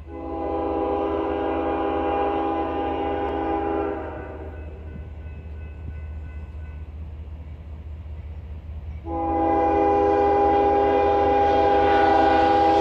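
CSX diesel locomotive's air horn blowing two long blasts: one of about four seconds, then after a pause of about five seconds a second blast that is still sounding at the end. A low steady rumble runs underneath.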